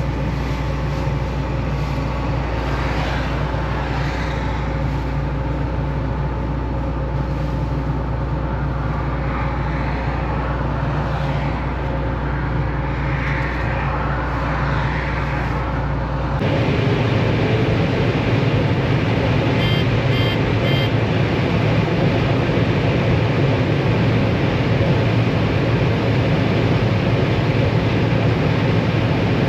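Combine harvester running steadily while harvesting corn, a constant engine and machinery hum. About halfway through, the sound cuts abruptly to a louder, rougher machine noise.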